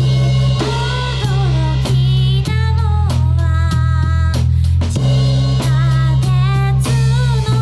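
Live rock band playing a cover: drum kit keeping a steady beat with a heavy bass guitar line, electric guitar and a lead voice over the top.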